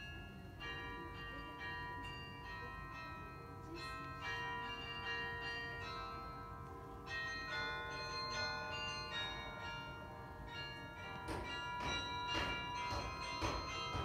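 The Belfry of Bruges carillon playing a tune: many tuned bells ringing and overlapping, new notes entering one after another. From about eleven seconds in the bells are struck in quicker succession.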